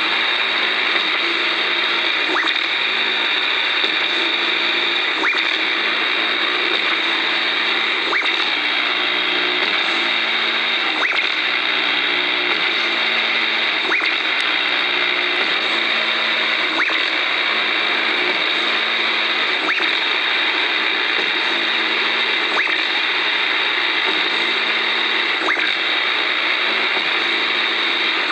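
AM radio hissing with static interference picked up from old televisions, a low buzzing hum in it pulsing on and off about every second or so as relays switch the sets, with faint regular ticks.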